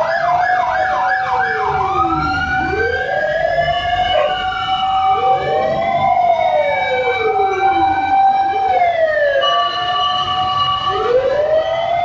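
Several fire truck sirens sounding at once. A rapid yelp runs for about the first second and a half, then overlapping slow wails rise and fall over a steady held tone.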